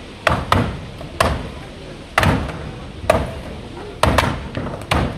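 Racing axes chopping into wooden logs: about eight sharp wooden chops at uneven intervals, the kind of overlapping rhythm heard when more than one chopper is working at once.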